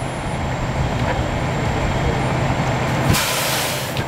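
Fire engines' diesel engines running steadily. About three seconds in, a loud hiss of air, just under a second long, breaks in.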